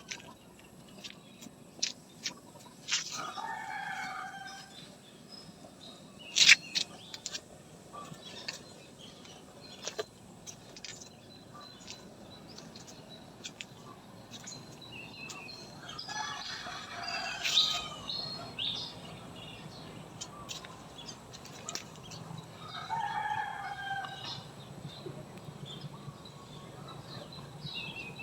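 A rooster crowing three times, each crow lasting a second or two, with short sharp bird chirps and clicks scattered in between.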